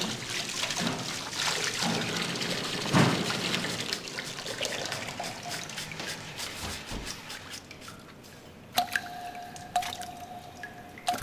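Water drops falling into still water: three sharp plinks about a second apart near the end, each with a brief ringing tone, after a stretch of hissy noise with scattered small clicks.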